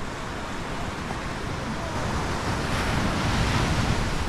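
Sea waves breaking, the surf swelling to a louder wash about two and a half seconds in, with wind rumbling on the microphone.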